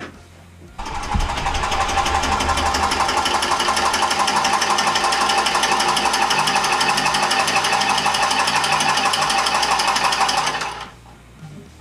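Battery-powered copper tubing cutter spinning its cutting wheel around a copper pipe, a steady fast whirring run that starts about a second in and stops near the end. The cut does not go through, which the plumbers put down to thicker-walled type L copper.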